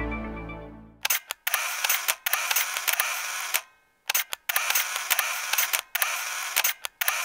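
Intro music fades out in the first second. Then an SLR-style camera shutter fires, first as single clicks and then in several rapid bursts of continuous shooting, with short pauses between them.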